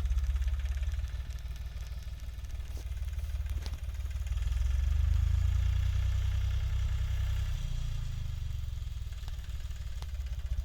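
Diesel engine of heavy farm machinery running steadily, getting louder from about four seconds in and easing back after about eight seconds.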